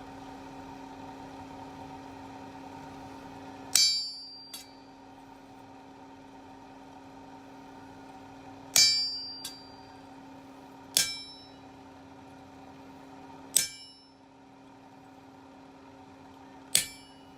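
Hammer blows ringing on steel as vein lines are scored into a forged leaf: five separate sharp metallic strikes a few seconds apart, the first two each followed by a light bounce. A steady hum runs underneath.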